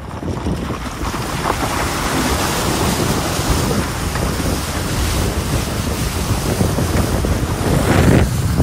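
A car fording a river, water rushing and splashing against its body and underside, building to the loudest surge of water near the end.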